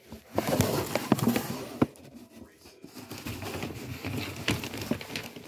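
Wrapping paper crinkling and rustling as a cat moves about inside a paper tunnel, with sharp crackles, loudest in the first two seconds and softer after that.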